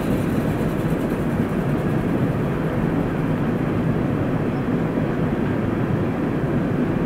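Steady outdoor ambience: a low, even rumble with no distinct events.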